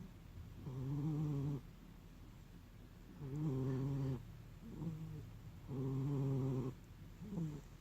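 A cat snoring in a steady breathing rhythm. A pitched snore just under a second long comes about every two and a half seconds, three times, with a shorter, briefer snore between some of them.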